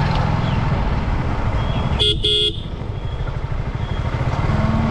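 Yamaha R15 V4's 155 cc single-cylinder engine running at low road speed under a steady rumble of engine and wind, in street traffic. About two seconds in, a vehicle horn gives two short toots in quick succession.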